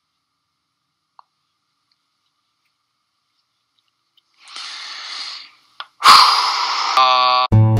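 A man's heavy sighs: a soft breath out about halfway through, then a loud one that ends in a short voiced groan. Acoustic guitar music starts just before the end.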